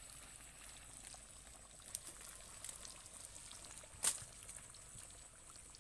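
Chicken frying in palm oil in a pan over a wood fire: a faint, steady sizzle with scattered small crackles and one sharp pop about four seconds in.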